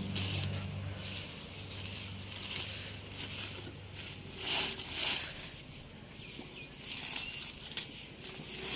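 Charred aluminium foil crinkling and rustling in a series of short scratchy bursts as pliers work at the binding wire wrapped around a foil-packed grilled fish. A low hum fades out in the first few seconds.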